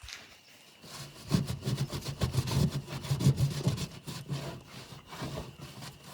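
Rapid back-and-forth scrubbing strokes, starting about a second in: a rag wiping alcohol over the bared aluminum around a boat rivet to clean off residue before brazing.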